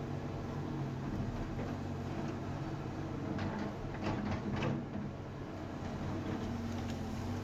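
Excavator's diesel engine running steadily, with a few short knocks and scrapes a little past halfway as the machine digs.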